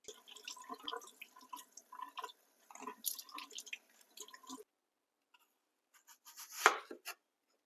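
Tap water running and splashing over lettuce leaves in a stainless steel sink as they are rinsed by hand, stopping about four and a half seconds in. Then a kitchen knife cutting into a red onion on a bamboo cutting board, with one loud cut near the end.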